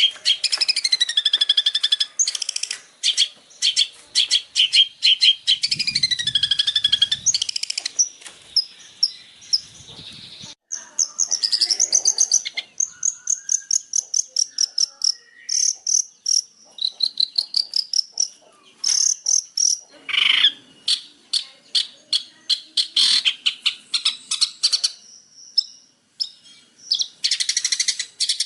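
Songbird song: fast, dense chattering trills and rattles, mixed with short held whistles and a few rising and falling whistled glides. The bird stops and starts again many times.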